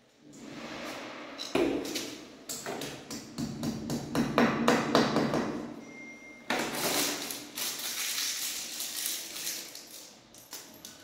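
Tools and fittings being handled: a quick run of clicks and knocks, then a spell of rustling and scraping near the end.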